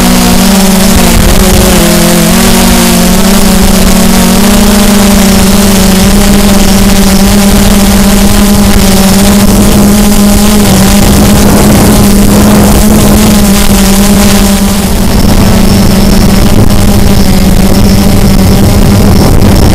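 Multirotor drone's motors and propellers running at a steady hover or cruise, a loud, even buzzing hum whose pitch wavers slightly in the first few seconds and then holds, picked up by a camera mounted on the drone itself, with a rush of air noise over it.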